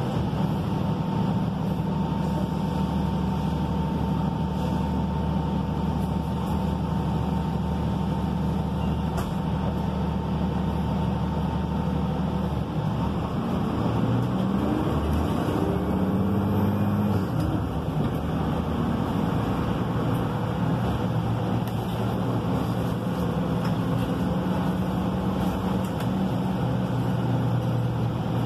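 Inside a moving Gillig Low Floor city bus: its Cummins ISL9 diesel engine and Voith automatic transmission running steadily, with road noise. About halfway through, the engine note drops away, then climbs in steps as the bus gets going again.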